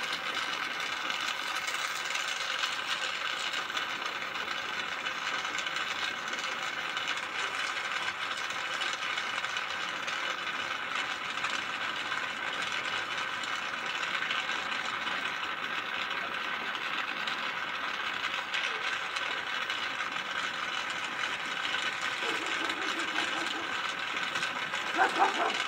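Gas torch flame hissing steadily as it melts gold in the crucible of a homemade vertical centrifugal casting machine. A few short, sharp squeaks near the end.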